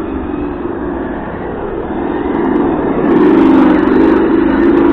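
Simulated engine sound played by the ESS T.T sound module's speaker on a brushless Hobao Hyper GT-B 1/8 RC car as it drives, getting louder about three seconds in.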